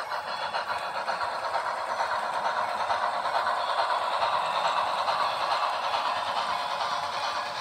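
HO scale model train running past, a steady clattering rush as its passenger cars roll by on the track.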